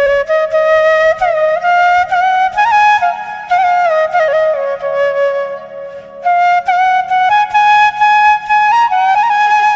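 Flute playing a slow melody with sliding, ornamented notes, the phrase breaking off briefly about six seconds in, over a faint steady low drone.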